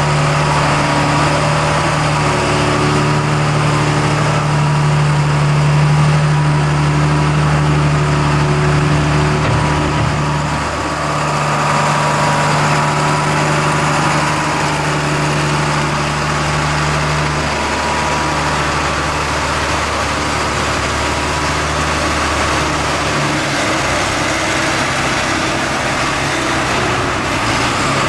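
Diesel engines of a Cat telehandler pushing chopped corn silage and a John Deere tractor packing the silage pile, running steadily with the engine note shifting several times.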